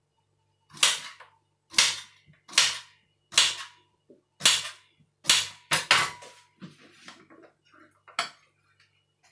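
Knife slicing through a fresh cucumber onto a hard surface: a series of sharp, crisp chops, about one a second, eight or nine in all.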